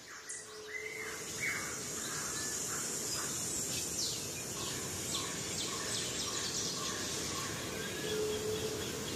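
Daytime forest ambience: a steady high insect hum with scattered short bird chirps and whistles, and a brief low whistled note shortly after the start and again near the end.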